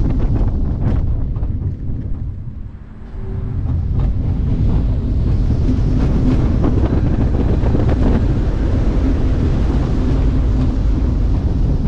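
Onboard ride noise of the Steel Taipan launched roller coaster train running along its track: wind rushing over the mounted camera's microphone with a deep rumble of the wheels. The noise drops about two to three seconds in, then rises again and holds steady.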